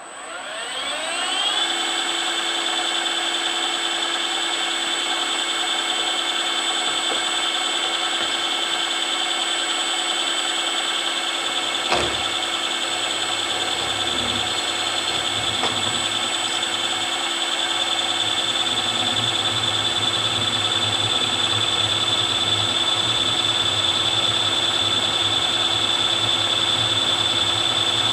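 Milling machine spindle starting up, its whine rising over about a second and a half, then running steadily at speed, plunge-cutting a slot with a 6 mm end mill. A single sharp knock comes about twelve seconds in, after which a low hum joins the running.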